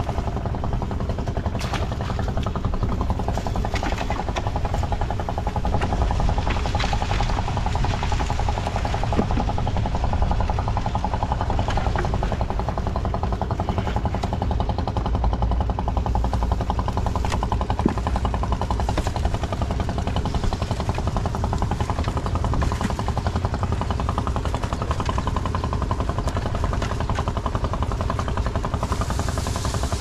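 A small engine runs steadily with a fast, even beat. Occasional sharp knocks and rattles sound over it.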